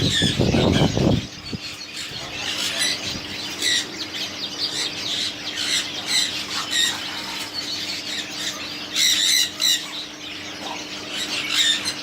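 Many market birds squawking and calling over and over, with a steady low hum behind them and a loud low rumble in the first second.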